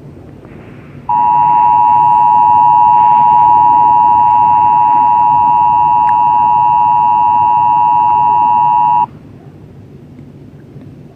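Emergency Alert System attention signal: two steady tones sounded together, starting about a second in, held for about eight seconds and cutting off sharply. It is the alarm that announces an emergency alert message is about to be read.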